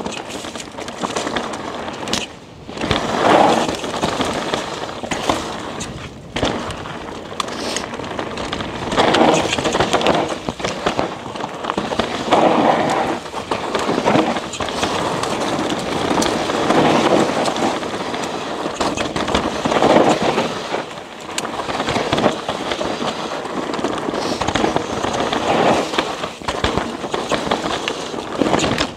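Mountain bike tyres rolling fast over a dry, loose, dusty dirt trail, crunching and skittering over grit and small stones. The bike clatters and rattles over the bumps, and the noise swells and eases every few seconds.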